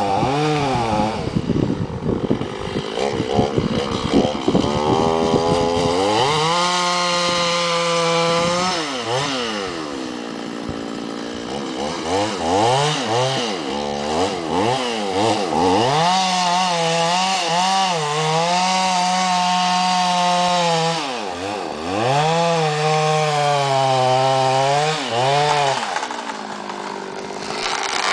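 Stihl MS 310 two-stroke chainsaw with an 18-inch bar and full-chisel chain cutting through an oak trunk to fell it. The engine revs up and holds at high speed for several seconds, drops away, then revs up again, over and over.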